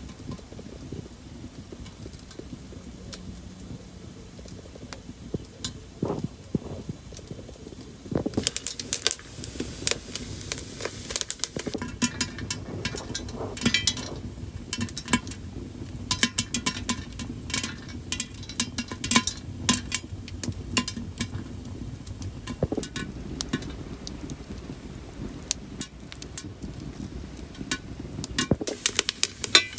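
Popcorn kernels popping in a covered saucepan: after a quiet start, sharp irregular pops and crackles begin about eight seconds in, come thick and fast for a while, then thin out to scattered pops.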